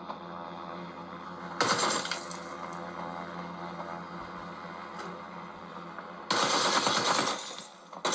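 Automatic rifle fire in a mobile shooter game: a short burst about one and a half seconds in and a longer burst near the end, over a steady background hum of game sound.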